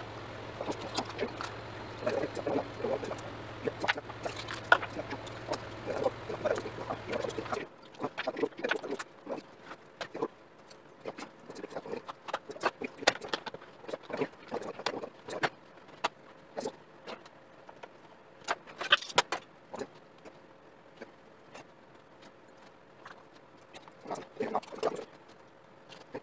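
Hands working a raw whole chicken on a plastic cutting board: irregular clicks, taps and handling noises as the meat is pulled and pressed from the bone. A low steady hum under it stops suddenly about seven seconds in.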